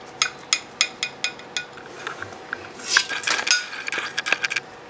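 Steel kitchen knife clinking against a glass serving dish while cutting through a soft chocolate cake, light clicks about four a second. Near the end comes a louder, denser run of scraping and clinks as the blade slides along the glass under a slice.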